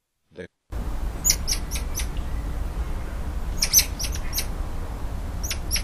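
Squirrel monkey calling: several bursts of quick, very high-pitched squeaky chirps, the first about a second in and another near the end, over a steady low rumble.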